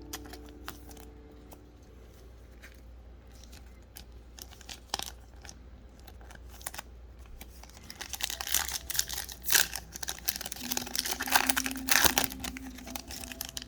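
Trading cards and crinkly plastic handled close to the microphone: scattered light clicks and rustles at first, then from about eight seconds in a busier run of plastic crinkling.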